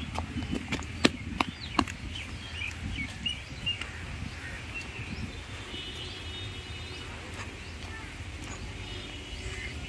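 Birds chirping over a steady low outdoor rumble, with a few sharp clicks in the first two seconds.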